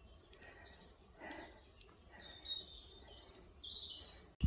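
Small woodland birds chirping and calling: many short, high notes and quick whistled phrases, overlapping, with a faster run of notes in the second half. A couple of faint scuffs sound near the start and about a second in.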